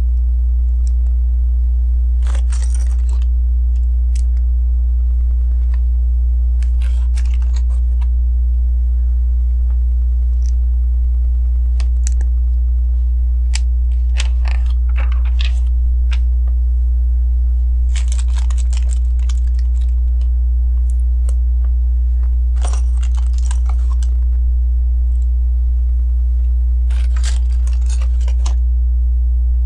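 Lego bricks clicking and rattling as pieces are picked up and pressed together, in short clusters every few seconds, over a steady low hum.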